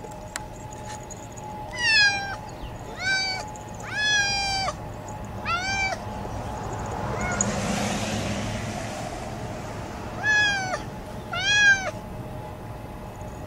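Domestic cat meowing about six times in the snow, high-pitched, drawn-out calls in irregular spacing, which the owner takes as the cat not liking the snow. A rushing noise swells and fades in the middle, between the meows.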